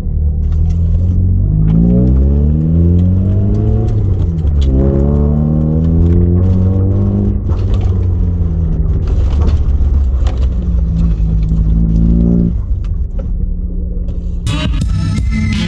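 Car engine heard from inside the cabin, rising in pitch as the car accelerates, dropping at a gear change about four seconds in, climbing again, then holding steady. Music comes back in near the end.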